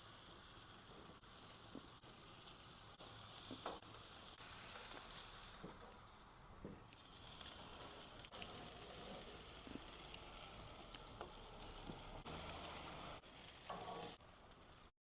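Boneless skinless chicken thighs sizzling on a hot grill, a steady hiss that swells louder about five seconds in and dips briefly a second or so later. It cuts off just before the end.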